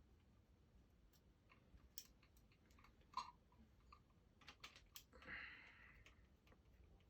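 Faint, scattered clicks and taps of small plastic parts and screws being handled, with a short scraping rustle a little after five seconds.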